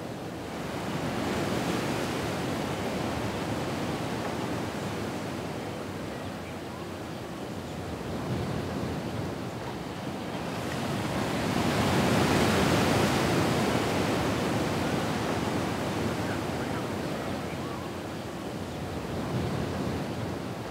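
Ocean waves washing in and out on a shore, a steady hiss of surf that swells slowly and recedes, loudest about a second in and again around the middle.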